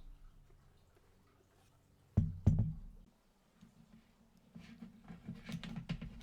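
Two sharp knocks about a quarter second apart, as of hard objects set down or bumped on a work surface, then a run of lighter clicks and rattles from handling parts.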